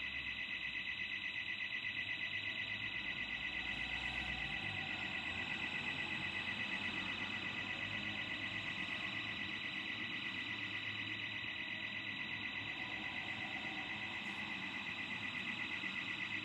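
Burglar alarm sounding continuously: a high electronic tone warbling rapidly and evenly, without a break.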